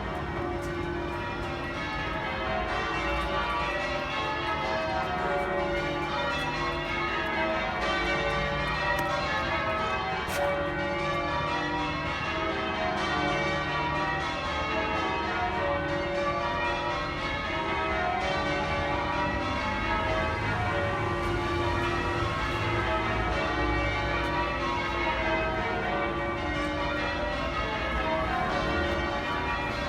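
Church bells of St Mary Abbots, Kensington, being change-rung: a steady, unbroken stream of overlapping bell strikes, rung as the call to Sunday morning service.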